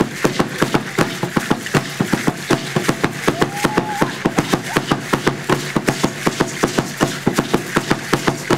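Large upright Aztec drum (huehuetl) beaten in a fast, even rhythm, about five strokes a second, with the dancers' ankle seed-pod rattles shaking along with their steps.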